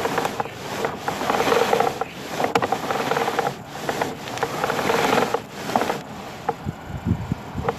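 Rubbing and scraping as a sewer inspection camera is pushed along a pipe over gravel and debris, in irregular surges that ease off near the end.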